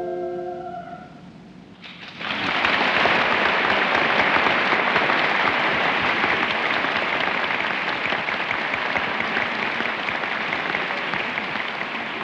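The last held chord of the music dies away, then about two seconds in audience applause breaks out suddenly and keeps going, easing slightly near the end.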